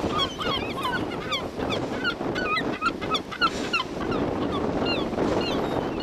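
Several gulls calling, a quick run of short, hooked, yelping notes that overlap one another, over a steady background rush.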